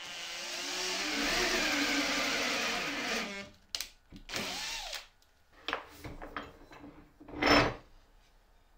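Electric drill in a drill stand boring into a small wood block with an auger bit, the motor's pitch sagging under load for about three seconds, then a second short run. Several knocks follow, the loudest near the end.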